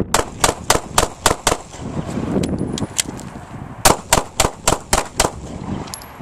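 Semi-automatic pistol fired six rounds in quick succession, about four shots a second, then a gap of about a second and a half with small clicks of a speed reload, then six more rapid shots from kneeling.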